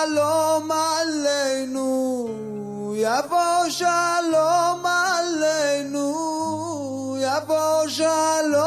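Music: a single voice sings long, held notes that bend and slide in pitch, with no clear words, over steady low sustained bass notes.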